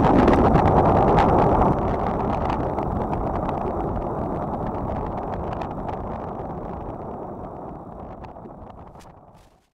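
Wind rushing over the glider's onboard camera microphone, a low steady noise with scattered crackles, fading out to silence near the end.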